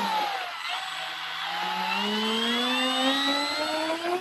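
Brushless electric motor and propeller of an FMS CJ-6 RC warbird whining, dipping briefly at the start and then rising steadily in pitch as the throttle comes up for the takeoff roll.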